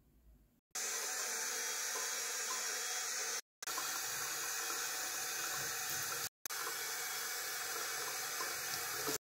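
Water running steadily from a tap, a continuous even rush that starts about a second in, cuts off abruptly twice for a moment and resumes, and stops just before the end.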